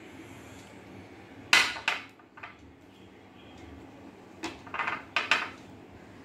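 Small drinking glass knocking and clinking on a glass tabletop. There is a sharp knock about one and a half seconds in, a couple of lighter ones after it, and a quick cluster of clinks near the end.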